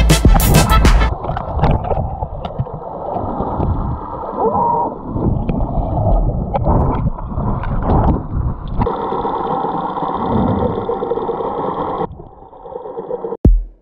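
Muffled water gurgling and sloshing, dull with almost no high end, as picked up by a camera in a waterproof housing; it grows a little brighter for a few seconds near the end, then fades.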